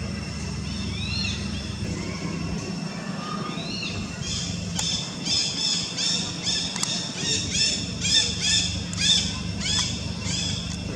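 Monkeys shrieking: a few rising-then-falling high cries, then, about four seconds in, a fast run of shrill squeals at two or three a second that stops shortly before the end. A steady low hum runs underneath.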